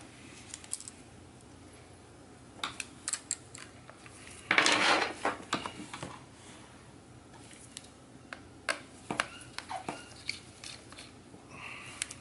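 Scattered light clicks and taps of hands and small parts working on a MacBook Pro's opened aluminium case, with a brief scraping rustle about four and a half seconds in.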